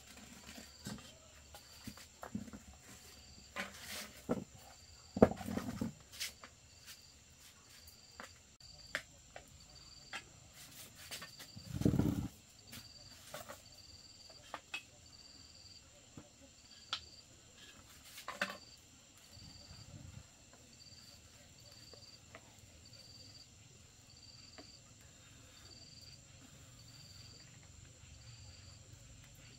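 Sparse clicks and clinks of chopsticks and a metal cooking pot at a wood-fire hearth, with one louder, low, dull knock about twelve seconds in. Over it a cricket chirps faintly and regularly, about once a second, against a steady faint high hiss.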